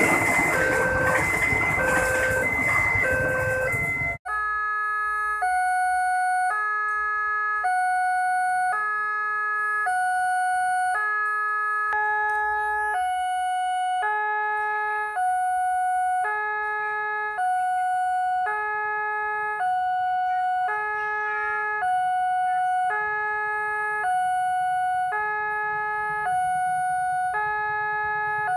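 Electronic level-crossing warning alarm at a railway crossing, sounding over the rumble of a passenger train going past. About four seconds in, the sound cuts to a clean two-tone alarm that alternates between two chimes roughly once a second.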